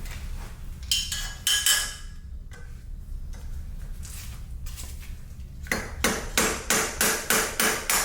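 Metal tools clanking with a ringing tone about a second in, then a steady run of about eight quick hammer blows on metal, some three or four a second, near the end, as a stuck part is knocked loose.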